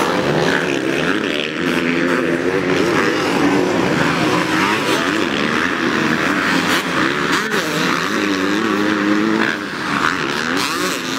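Racing engines revving hard during a race, several at once, their pitch rising and falling as they accelerate and ease off.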